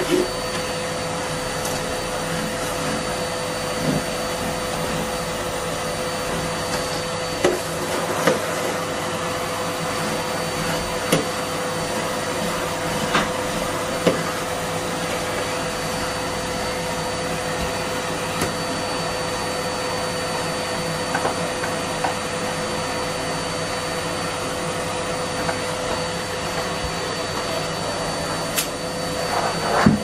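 Numatic Hetty cylinder vacuum cleaner running steadily, a constant motor hum and whine over the rush of suction as the hose nozzle is worked over carpet. A few sharp knocks and clicks from the nozzle come through now and then.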